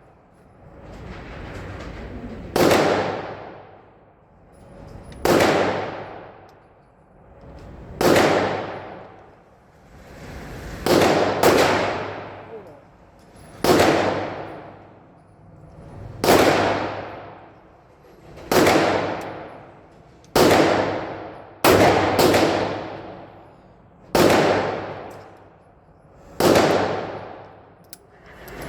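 A string of loud gunshots, about a dozen sharp bangs coming every two to three seconds, each trailing off in a long fading tail.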